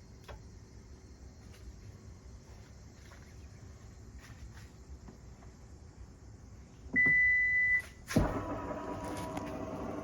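Power rear liftgate of a Toyota Harrier (80 series) being closed: one electronic warning beep lasting just under a second, a sharp knock about a second later, then a steady mechanical hum with several tones as the gate's drive runs. The owner is recording it because the gate makes an abnormal noise when it closes.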